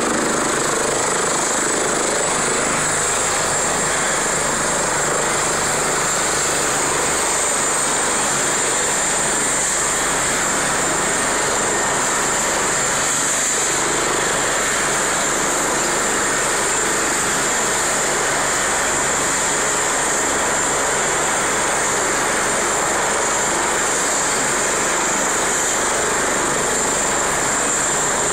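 Helicopter running on the ground with its rotor turning: a steady, loud rushing noise with a high turbine whine.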